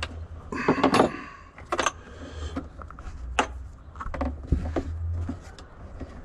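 Irregular small clicks and rattles of hand work as a Tein EDFC Active damper motor is turned and threaded onto the top of a shock absorber, with a cluster of rattling about a second in and single sharp clicks later, over a low steady hum.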